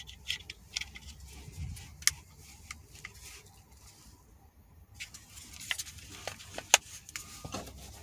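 Scattered small clicks and taps of a removed accelerator pedal assembly, a plastic sensor housing on a pedal arm, being handled and turned over in gloved hands, with a sharper click about two seconds in and a louder one near seven seconds.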